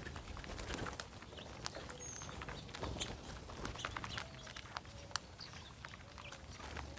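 A flock of mourning doves on the ground: a steady scatter of small clicks and taps, with a few short soft low coos and one brief high chirp from a small bird about two seconds in.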